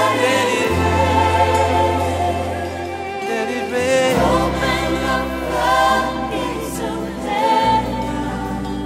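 Christian worship music: a choir singing with a band over long held bass notes that change pitch every three to four seconds.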